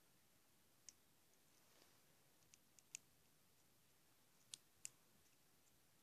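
Faint sticky clicks and pops of slime being squeezed and kneaded in the hand: a handful of short clicks scattered over near silence, two close together a little after 4.5 s.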